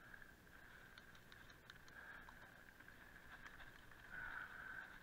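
Near silence: an electric mountain bike rolling quietly along a dirt trail, a faint steady thin whine with scattered light ticks from the tyres, swelling slightly near the end.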